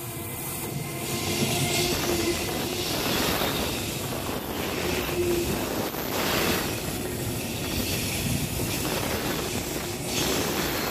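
Taiwan Railways EMU1200 Tze-Chiang electric multiple-unit train running: a steady din of wheels on rail with a faint steady hum, growing louder about a second in and swelling at moments.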